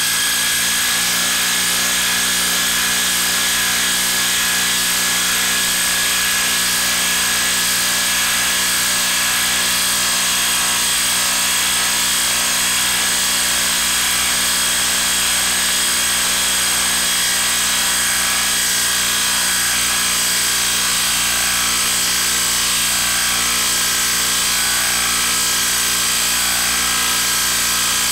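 DeWalt DCF890 20V MAX XR cordless impact wrench hammering continuously and evenly, driving a 6-inch lag screw into wood through a quarter-inch hex anvil and extension. The tool is working hard against the long lag.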